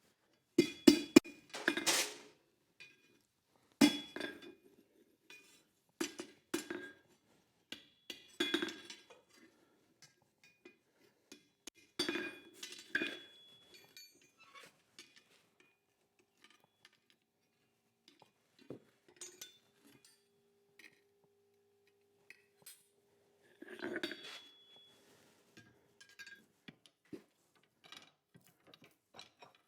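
Scattered metal-on-metal clinks and light hammer strikes on steel at a blacksmith's anvil, coming a few at a time with quiet gaps between, each leaving a short ring. In the second half a single steady ringing tone hangs for several seconds.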